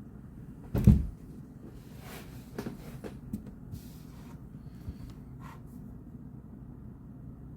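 A single dull thump about a second in, then a few light clicks and rustles, like objects being handled on a desk, over a steady low hum.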